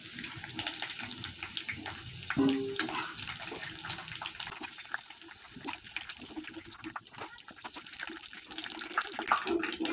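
Hot oil sizzling and crackling in a wok as fried potato and pointed gourd pieces are lifted out with a slotted spoon, with scattered light clicks of the spoon against the pan.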